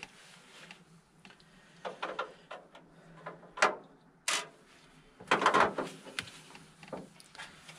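Handling noises from work on the truck: a few light knocks, two sharp clicks about two thirds of a second apart, then a longer rustling scrape, with the engine off.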